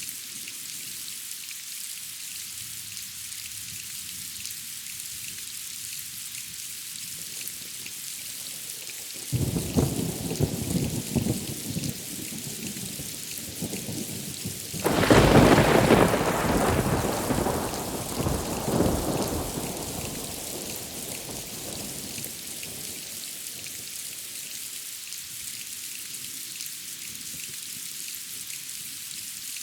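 Steady rain hissing, with thunder: a rumble begins about nine seconds in, then a louder, sharper clap about fifteen seconds in rolls away over several seconds.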